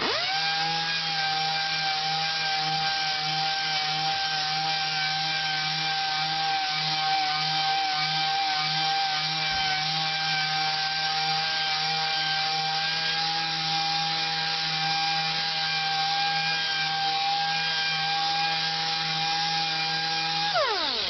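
Random orbital (DA) sander with 400-grit paper running steadily on a Corian countertop, a steady whine that spins up at the start and winds down just before the end.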